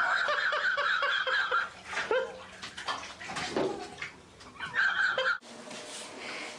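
Bathwater splashing as a cat thrashes in a filled bathtub, with a young child's loud, high-pitched squeals over it. The sound cuts off suddenly near the end.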